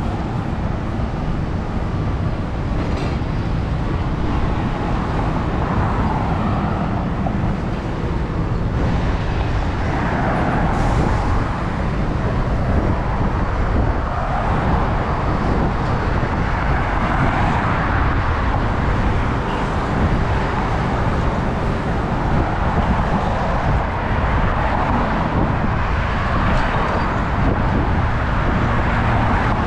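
Steady road traffic noise with a heavy low rumble, and vehicles swelling past every few seconds.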